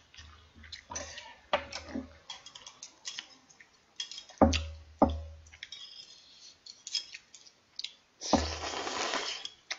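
Eating sounds: chopsticks clicking on a bowl and chewing, with two sharp knocks about halfway, then a long slurp of kalguksu noodles near the end.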